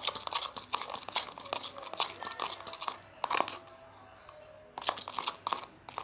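Plastic crinkling and crackling as it is handled: dense crackles for the first three seconds, then a quieter pause and a few scattered crackles near the end.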